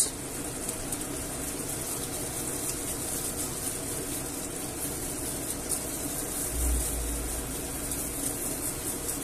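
Tomato sauce and stock simmering steadily in a frying pan with sausages: an even bubbling that keeps going without change.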